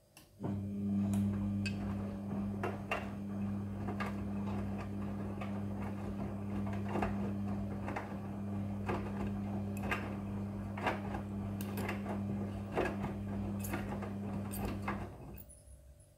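Midea front-loading washing machine running: a steady low hum with many scattered clicks and knocks over it, starting about half a second in and cutting off shortly before the end.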